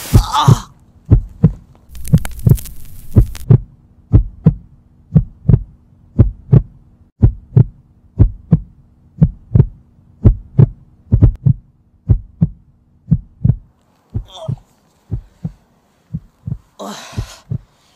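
Heartbeat sound effect: evenly spaced low thuds in lub-dub pairs, over a low steady hum. A brief hiss comes about two seconds in; the hum stops about fourteen seconds in and the beats go on fainter, with rustling near the end.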